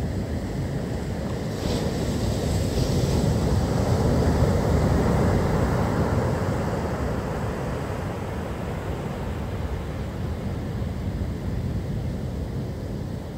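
Rough stormy surf breaking on the beach as a deep, steady rumble. One wave crashes and swells from about two seconds in, then slowly fades. Wind buffets the microphone.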